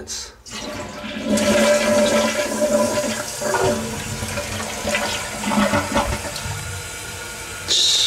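Kohler toilet flushing: water rushes into the bowl about half a second in, loudest over the next couple of seconds, then eases into a steadier running hiss as the tank refills, with a brief sharper hiss near the end.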